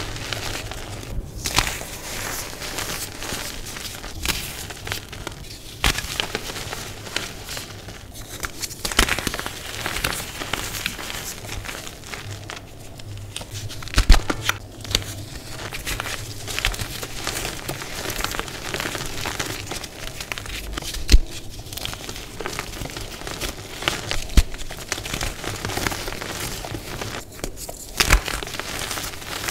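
Hands crushing and crumbling dusty blocks of dyed gym chalk: a dense, irregular crunching crackle with soft powdery crumbling. A few sharp snaps stand out, the loudest about halfway through and again about two-thirds in.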